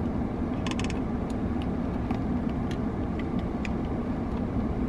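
Steady low hum inside a parked car, with faint scattered ticks of ice clinking in a plastic iced-coffee cup as it is shaken and lifted to sip; a small cluster of ticks comes about a second in.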